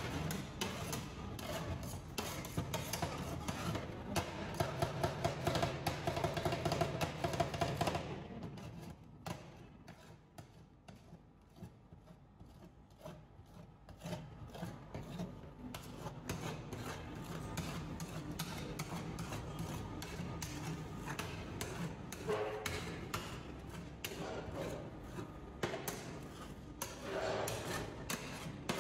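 Two metal spatulas scraping and tapping on a stainless-steel cold plate as ice cream is chopped and spread thin for rolled ice cream, in rapid strokes, with background music. Quieter for several seconds in the middle.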